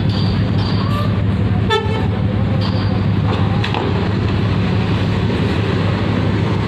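Heavy diesel bus engines running close by in a steady, loud drone, with a single brief horn toot about two seconds in.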